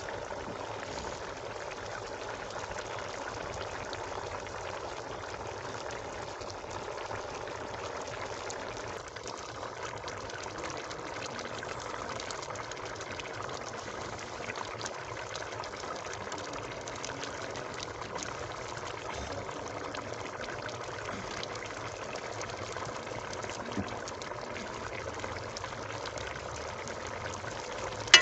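Chicken karahi curry boiling steadily in a large uncovered aluminium pot over a wood fire: a continuous, even bubbling. A single sharp clink right at the end as a steel ladle goes into the pot.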